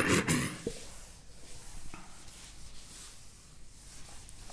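A brief louder sound right at the start, then faint footsteps and rustling as a man moves across to a whiteboard.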